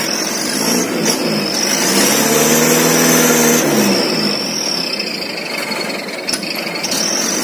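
Dump truck's diesel engine running, revved up about two seconds in and then eased back down.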